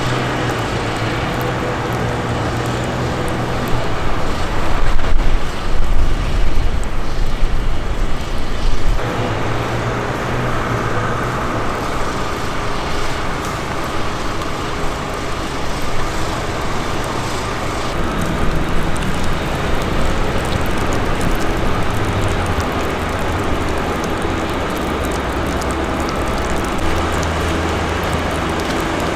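Steady city street traffic noise, louder and more uneven for a few seconds early on, with abrupt changes in its character about 9 and 18 seconds in.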